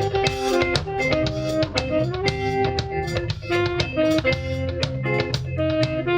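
Band music with drum kit, bass and guitar playing a steady beat.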